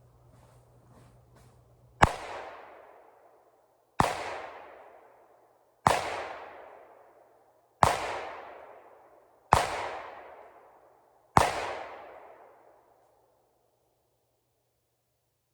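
Six gunshots about two seconds apart, each trailing off in an echo that dies away over a second or so.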